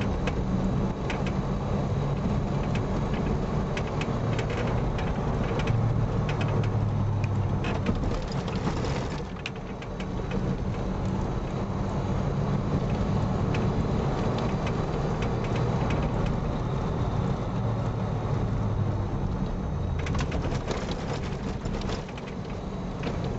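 Car's engine and tyres on a rough unpaved road, heard from inside the cabin: a steady low drone that swells now and then, with scattered clicks and rattles from the road surface and the car body.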